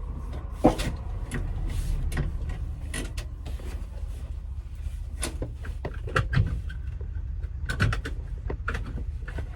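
A steady low rumble, as of a car with its engine running, with scattered clicks and knocks of a car door and fittings being handled. The sharpest knock comes under a second in.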